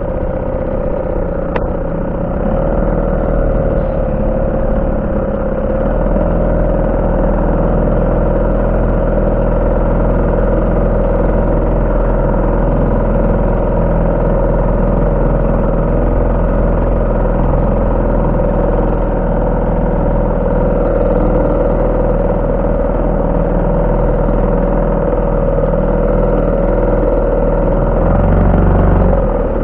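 HDX 3.6 two-stroke outboard motor on a rowing boat running steadily, just started on the first try, with a constant engine hum. It gets a little louder near the end.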